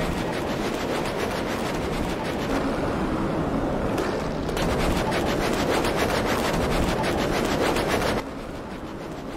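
A curling stone rumbling as it slides over the ice, overlaid with rapid scratchy broom strokes sweeping in front of it. The noise drops off sharply about eight seconds in.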